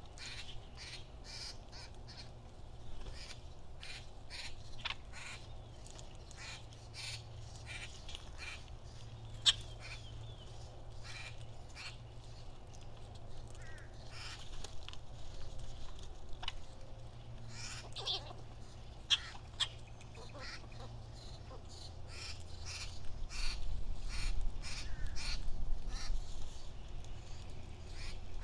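Birds calling around a backyard feeder: many short chirps and calls scattered throughout, with two much louder sharp calls, about a third and two thirds of the way through. A low rumble grows louder in the last few seconds.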